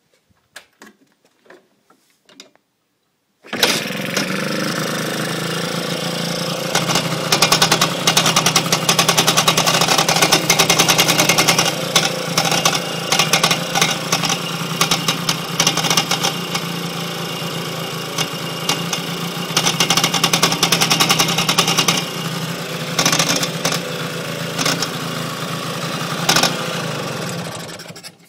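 Vespa PX125's two-stroke single-cylinder engine starts suddenly about three and a half seconds in and runs until near the end, with a dense metallic ticking over it. The owner takes the metallic noise for a suspicious fault.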